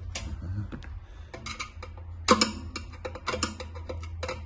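Scattered clicks and light plastic rattles as a heater's small locking wire connectors are pried loose and pulled off by hand, with one sharper click a little past the middle.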